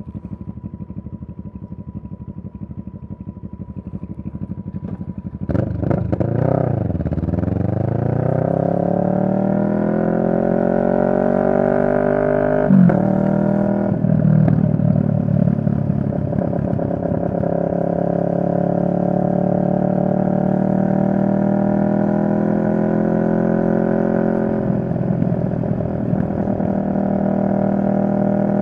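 2023 CFMoto 650NK's parallel-twin engine running quietly for about five seconds, then pulling away. It revs up and accelerates with the pitch climbing, shifts up with a sharp break a little before halfway, climbs again, then settles into a steady cruise.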